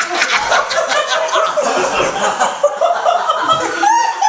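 A small group of men and women laughing and chuckling together at a joke's punchline.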